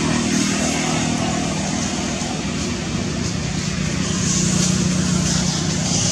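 Steady engine hum under a hiss, like a motor vehicle running nearby, swelling slightly about four seconds in.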